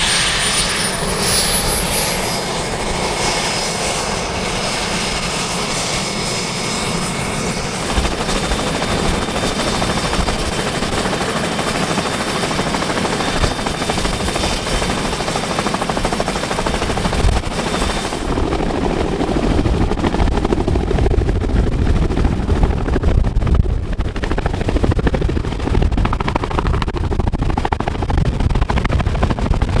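Columbia 107-II Vertol tandem-rotor helicopter running its twin turboshaft engines with both rotors turning. A high turbine whine rises in pitch as the engines spool up. Past the middle, the deep rotor sound grows heavier and louder as the helicopter lifts off and climbs.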